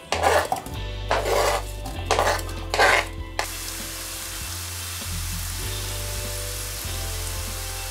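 Diced apple pieces are scraped off a plastic cutting board and clatter into a hot frying pan in a few quick knocks over the first three seconds. After that the apples fry in butter with a steady sizzle.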